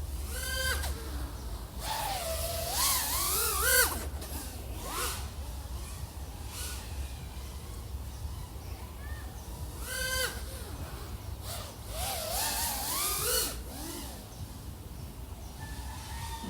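A 3.5-inch FPV quadcopter with 1504 3100KV motors in flight: a whine that rises and falls in pitch with the throttle. It swells into longer warbling bursts at about two to four seconds and again at twelve to thirteen seconds, with shorter ones near the start and around ten seconds.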